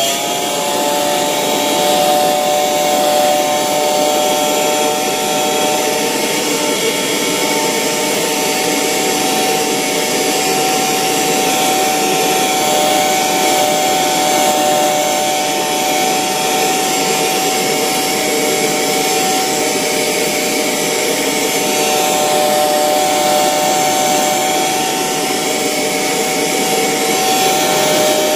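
Vacuum cleaner running steadily, a high motor whine over rushing air, as it sucks up sanding dust from a wooden deck. The whine rises as the motor comes up to speed right at the start, then holds one pitch.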